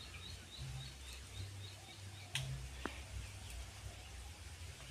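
Faint outdoor ambience: a low rumble under a light hiss, with a bird chirping quickly for about the first second and a couple of soft clicks midway.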